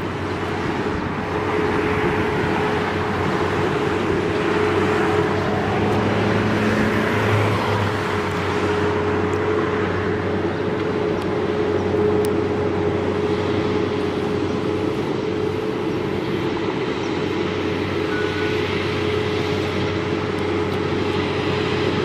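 Whelen WPS-4004 electronic outdoor warning siren sounding its steady Alert tone in a test, holding one unchanging pitch over a steady background hiss.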